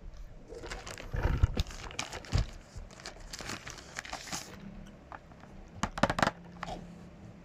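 Phone-case packaging being handled and opened: crinkling and rustling with irregular clicks and taps, loudest about a second and a half in and again around six seconds.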